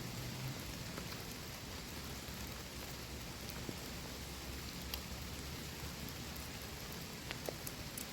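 Steady rain falling, with scattered sharp ticks of drops, several of them near the end.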